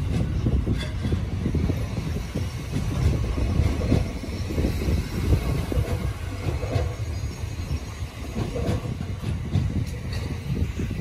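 Electric commuter train rolling slowly along the track beside the platform: a steady low rumble with wheels clicking and knocking over the rail joints.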